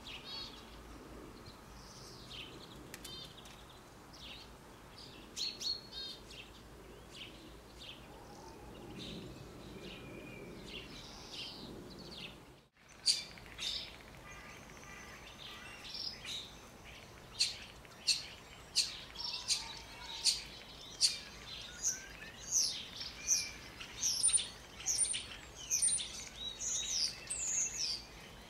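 Small garden songbirds chirping with short, high calls. The calls are sparse and faint at first. After a brief dropout about halfway through they come louder and quicker, about one or two a second.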